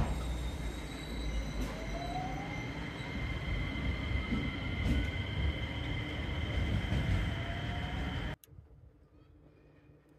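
JR West 227 series 'Red Wing' electric train pulling out of the station: its motor whine rises steadily in pitch as it speeds up, over a low rumble of wheels on rail, with two steady high tones above. The sound cuts off about eight seconds in, leaving faint outdoor background.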